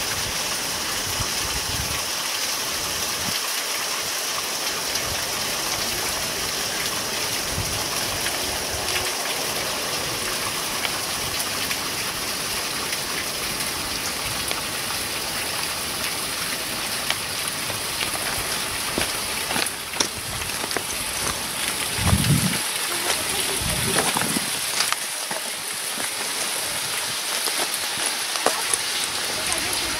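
Glacier meltwater running and dripping at the ice front and cave mouth: a steady rush of water. Two low thumps come a little after two-thirds of the way through.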